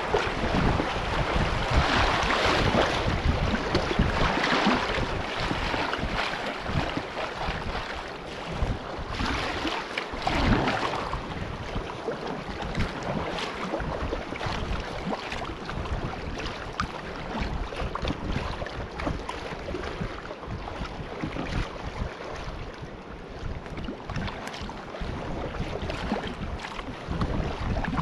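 River water rushing and splashing around a kayak on a stretch of rapids, with wind buffeting the microphone. It swells louder about two seconds in and again about ten seconds in.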